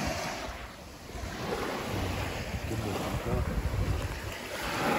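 Wind buffeting the microphone with a low rumble, over the wash of waves on a beach.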